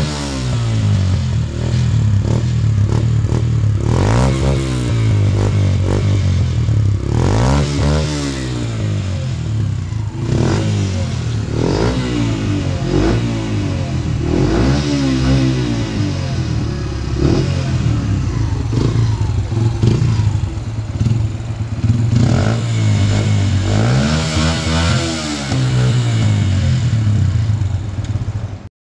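Yamaha YBR 125's single-cylinder four-stroke engine breathing through a Tiger TRI-700 stainless aftermarket exhaust, idling and free-revved over and over. Every two to three seconds the throttle is blipped and the note rises and falls back to idle. The sound stops abruptly near the end.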